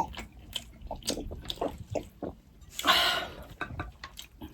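Wet chewing and lip smacks of someone eating soup: a run of small irregular clicks, with a louder breathy rush about three seconds in.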